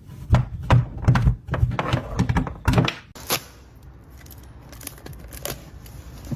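A quick run of knocks and thumps, then a quieter steady rustling noise.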